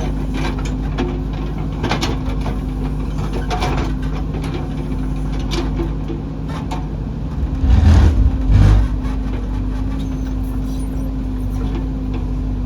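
An engine running steadily, with scattered clicks and knocks and two heavy low thumps about eight seconds in.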